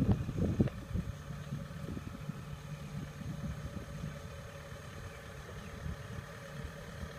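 Diesel engine of a tracked combine harvester running steadily as it drives along, heard as a low, even hum. A few dull low thumps come in the first second.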